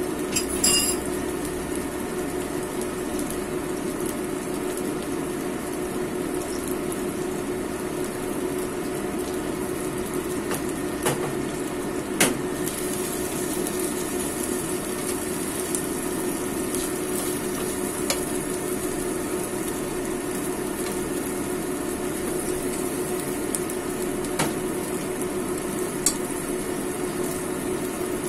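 Egg omelette frying in a nonstick pan with a steady sizzle over a low hum, with a few sharp clicks and scrapes of a fork and spatula against the pan.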